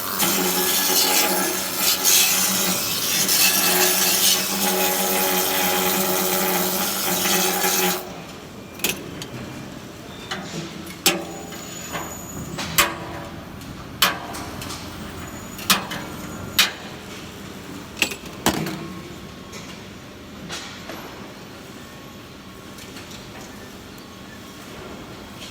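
Flux-cored welding arc on stainless steel, a dense hiss and crackle over a steady hum, cutting off abruptly about eight seconds in. A scattered series of sharp metallic knocks follows.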